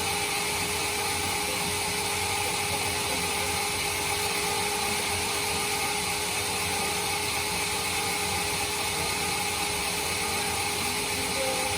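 Sawmill bandsaw running steadily: an unbroken mechanical hiss and whine with a couple of held tones.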